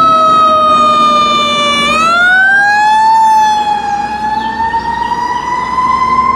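Fire truck siren wailing: its pitch dips a little, glides up about two seconds in, then keeps climbing slowly, over low street and engine noise.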